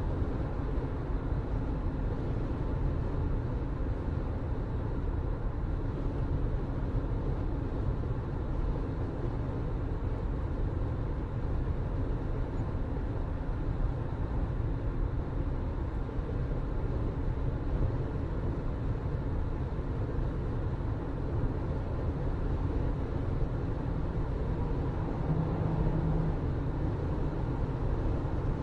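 Steady low rumble of a moving vehicle, with no clear changes or distinct events.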